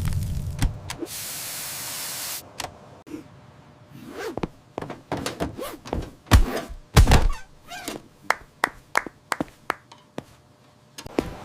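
Fire-extinguisher spray hissing for about a second and a half, then a run of sharp knocks and thunks, the loudest two a little past the middle.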